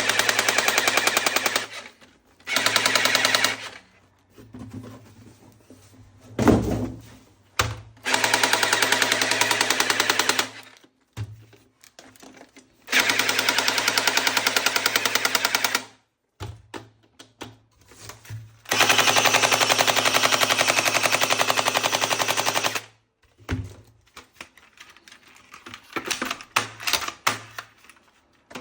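Electric toy gun firing on full auto: a motor whirs under rapid, even clicking. There are about five bursts, each one to four seconds long, with short pauses between them.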